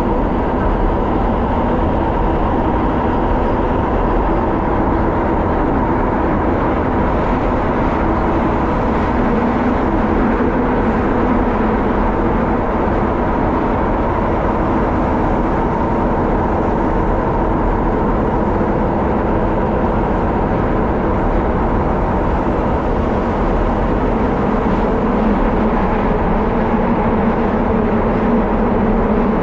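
Electric train of the Tozai and Keishin lines running through a tunnel, heard from the driver's cab: a steady rumble of wheels on rail with a constant motor hum.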